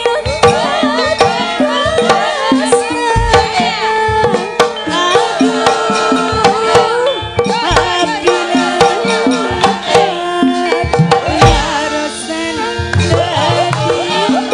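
Javanese gamelan music: sustained metallophone tones over regular kendang drum strokes, with a sindhen's wavering, ornamented vocal line above.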